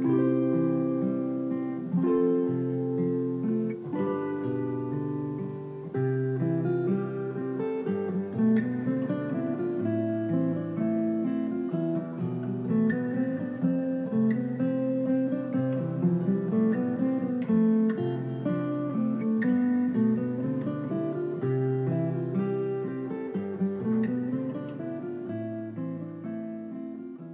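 Background music: acoustic guitar playing chords, fading out near the end.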